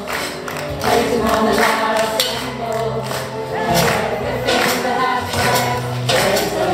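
A group of children singing a praise song together over instrumental music with a steady beat.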